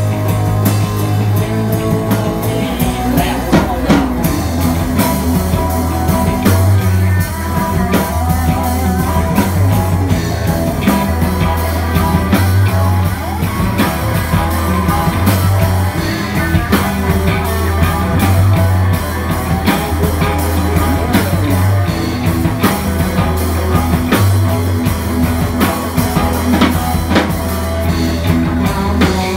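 A live rock band playing an up-tempo song: electric guitar, banjo, electric bass and drum kit, with a voice singing at times.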